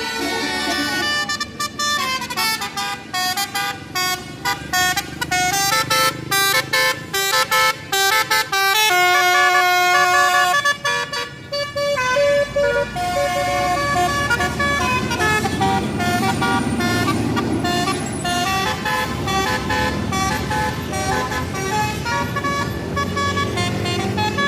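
Indonesian tour bus's basuri telolet horn playing a tune: a quick run of short, choppy notes, then a few longer held notes about nine seconds in, with the bus engine running underneath in the second half.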